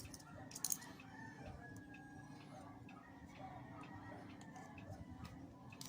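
Faint rooster crowing in the background, with a few small sharp clicks about half a second in from small parts being handled.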